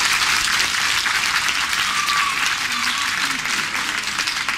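Audience applauding, a dense crowd of clapping hands that eases off slightly toward the end.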